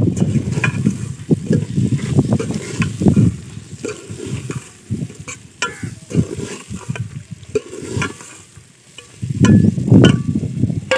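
A long metal spoon stirring and scraping lentils frying in an aluminium pot, with irregular clinks of the spoon against the pot's sides over a light sizzle.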